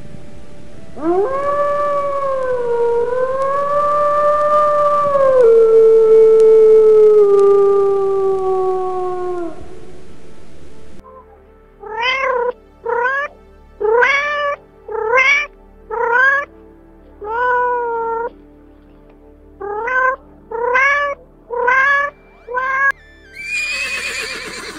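A grey wolf's long single howl, held steady and then sliding slowly down in pitch as it ends. Then a domestic cat meows about a dozen times, short calls roughly one a second, and near the end a horse gives one short call.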